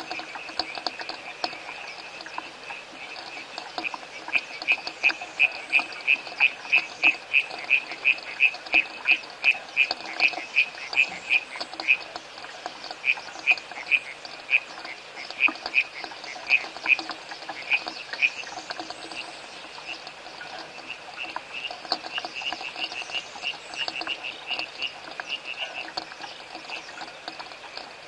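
Frogs calling: one loud, high, clipped note repeated about three times a second, fading out for a while past the middle and picking up again near the end, over a fainter chorus.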